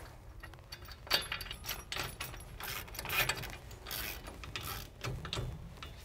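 Steel caliper mounting bracket, bolts and shims clinking and scraping against the spindle as they are fitted into place by hand: a string of irregular metallic clicks and short scrapes.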